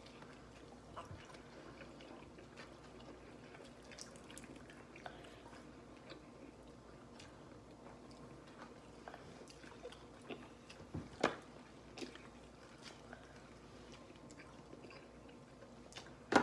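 Faint eating sounds from people biting and chewing chicken wings: scattered small wet clicks and smacks, with a sharper click about eleven seconds in.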